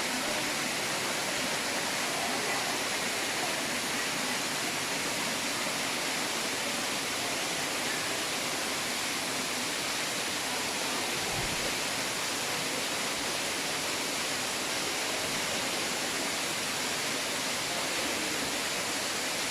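Waterfall: a steady rush of falling water with no change in level.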